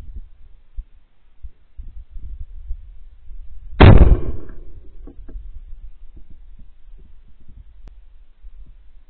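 A single .410 shotgun shot about four seconds in, its report dying away over about a second. Wind rumbles on the microphone throughout.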